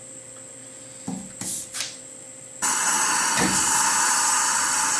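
A vacuum pump for a mill's vacuum fixture table switches on suddenly a little over halfway in and runs with a steady, loud rush as it pulls the aluminium plate down onto the gasket. Before it, a few brief noises as the plate is settled by hand.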